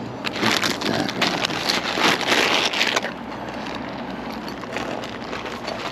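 Close crinkling and rustling from handling fishing tackle for about three seconds, then a steady rush of river water.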